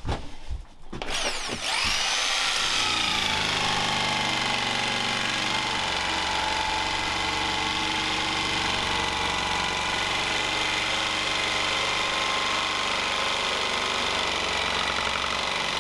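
Electric jigsaw cutting a wooden plank. Its motor starts about a second and a half in, rises quickly to speed, then runs steadily with the blade sawing through the board.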